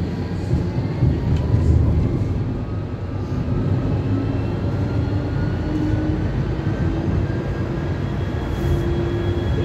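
Electric tram running on rails, its traction motors whining with a pitch that rises slowly as it picks up speed and levels off near the end, over a steady rumble of the wheels.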